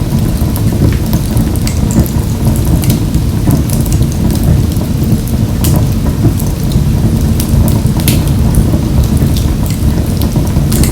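Wood fire burning in a wood-burning stove: a steady low rumble of the flames with frequent sharp crackles and pops scattered throughout.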